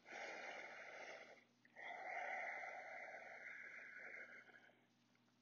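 Faint breathing: a short breath, then a longer one of about three seconds, held in a baby cobra pose.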